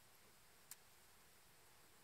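Near silence, with one faint, sharp click about a third of the way in.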